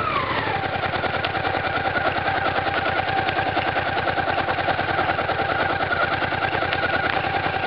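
Motorcycle engine easing off, its pitch falling over the first half second, then running steadily at low revs with a rapid, even exhaust pulse as the bike rolls slowly.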